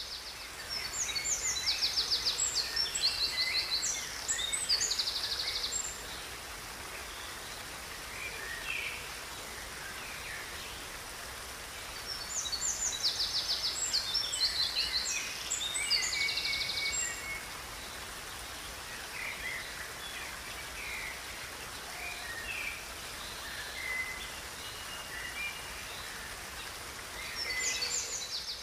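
Songbirds singing in two loud bouts of rapid, high trilled phrases, in roughly the first six seconds and again around twelve to seventeen seconds in, with scattered softer calls between, over the steady rush of a river.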